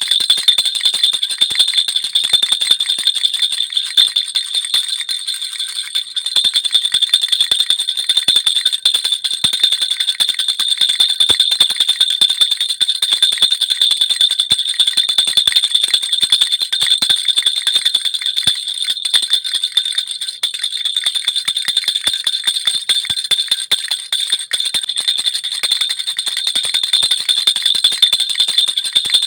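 Baby rattle (jhunjhuni) with small bells, shaken without a pause: a dense, rapid jingling over steady high ringing tones.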